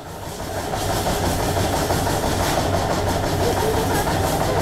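A machine running steadily, a low hum under a hiss, building up over the first second and then holding level.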